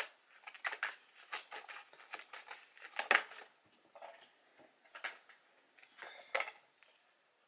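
A deck of tarot cards shuffled by hand: quick, irregular flicking and rustling of cards, densest in the first few seconds with one louder snap about three seconds in, then a few sparser clicks.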